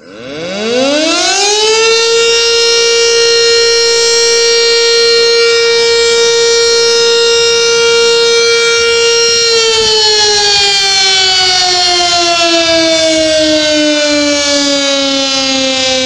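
Sentry 3V8 outdoor warning siren starting up. It winds up in pitch over about two seconds to a loud steady tone and holds it. About ten seconds in, the pitch begins a slow, steady fall.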